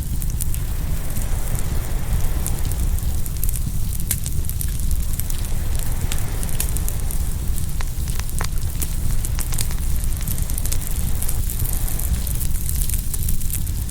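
Open bonfire crackling and popping in quick, irregular snaps over a steady low rumble.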